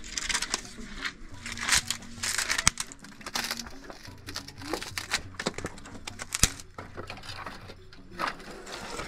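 Dry firewood sticks scraping and knocking against a packed-earth floor and a clay cooking stove as they are dragged and gathered by hand: an irregular string of wooden knocks and rough scrapes.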